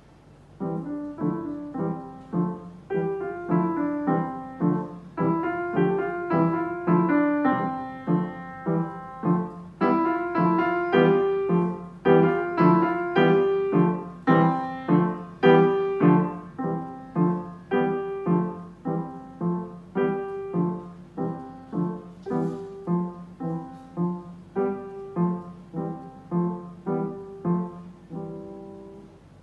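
Solo upright piano playing a short, steady piece, with a repeated low note struck on each beat a little more than once a second. It starts about half a second in and ends on a final chord near the end.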